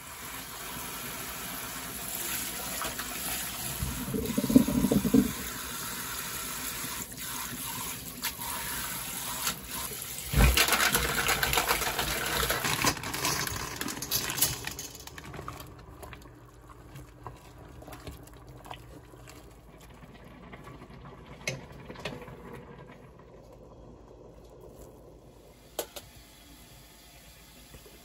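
Water running or pouring steadily, louder from about ten seconds in, then stopping about halfway through; after that only faint scattered clicks and taps remain.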